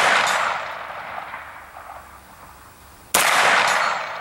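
AR-9 9mm carbine fired once, about three seconds in: a sharp shot followed by an echo that trails off over about a second. At the start, the echo of a shot fired just before is still dying away.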